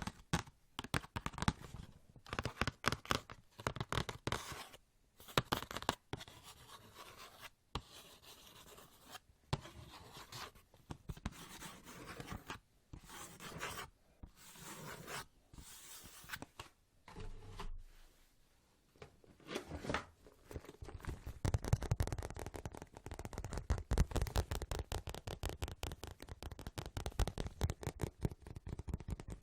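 Close-miked ASMR hand sounds: fast fingertip tapping and scratching, in quick clusters broken by short pauses, turning into continuous rapid tapping about two-thirds of the way through.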